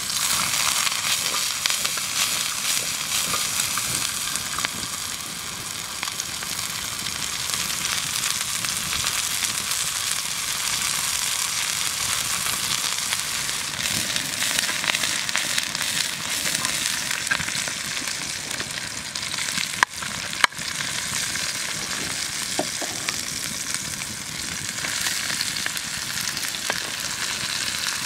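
Garlic cloves and shallots frying with a steady sizzle in a black iron skillet over a wood fire; sliced mushrooms are frying in the pan by the end. Two sharp clicks come about twenty seconds in.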